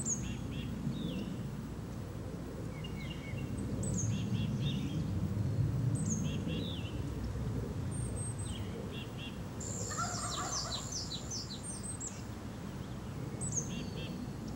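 Wild songbirds calling: a short high note sliding downward, repeated about every two seconds, with lower chirps in between, and a longer run of rapid notes about ten seconds in, over a low steady rumble.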